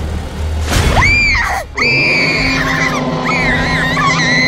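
A very high-pitched voice screaming: a short rising scream about a second in, then a long held scream that wavers in pitch partway through, over background music.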